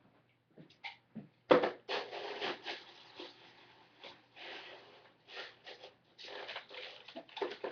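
Rustling and rattling handling noise with a series of clicks, the loudest a sharp click about a second and a half in, as airsoft BBs are fetched and loaded into a magazine.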